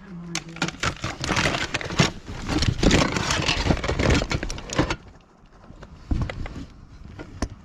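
Rummaging by hand through a box of small hard plastic electronics and cables, with a dense run of clattering and rustling that thins to scattered clicks about five seconds in.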